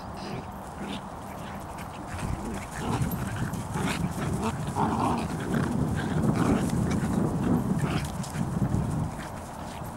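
Bedlington terriers growling while play-wrestling: a rough, low, uneven growl that swells from about two and a half seconds in and dies down near the end.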